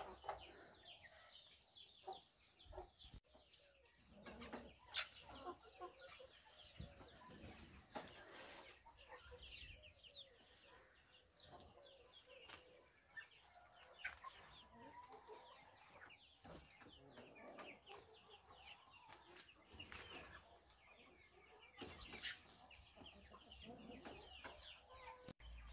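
Faint, scattered clucking and short calls of a flock of domestic chickens feeding on fresh weeds and grain.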